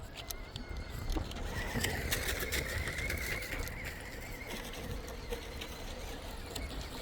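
Electric drive motor of an Axial SCX6 Honcho RC crawler whining, its pitch wavering as the throttle changes, with scattered clicks and clatters from the truck crawling over rough ground.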